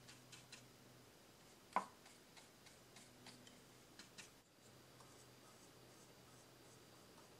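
Faint small clicks and ticks from a lacquered wooden tanto scabbard being turned and handled in the fingers, with one sharper click a little under two seconds in. After a cut about halfway through, only a faint steady hum with a few soft ticks remains while a brush works urushi lacquer onto the wooden handle.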